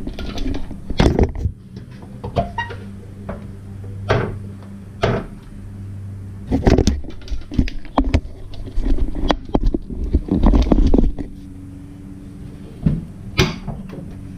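Irregular clunks and knocks of a Jeep Cherokee XJ's hood being unlatched and worked open, over a steady low hum.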